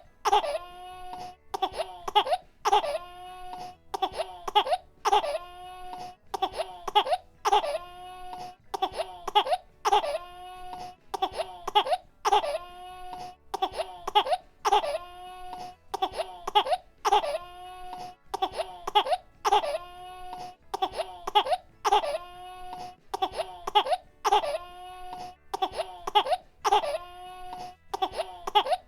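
Baby crying and coughing in short, steadily repeating bursts, about one a second, each starting sharply and carrying into a held, pitched wail.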